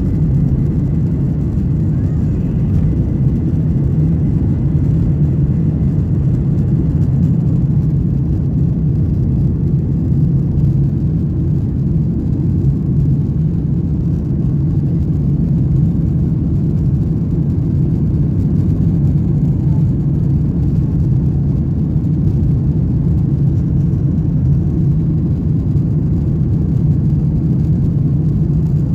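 Cabin noise of a Boeing 737-900ER at takeoff power, heard from inside over the wing: its CFM56-7B turbofans give a loud, steady low rush as the jet goes from the end of its takeoff roll into the initial climb. A faint high whine fades out a few seconds in.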